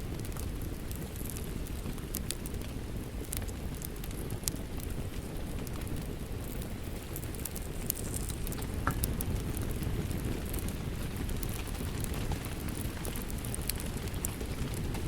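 A fireplace fire crackling, with scattered sharp pops, over a steady, even rain.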